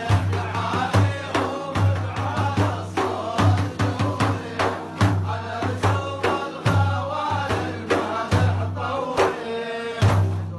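Male devotional singing in the Arabic maddah style over a steady, deep drum beat, a little more than one beat a second.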